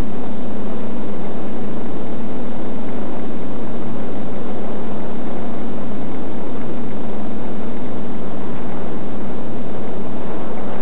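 Quadcopter's DJI E300 2212 920kv motors and 9x4 propellers running steadily in flight, a constant hum under heavy hiss as picked up through the FPV video link.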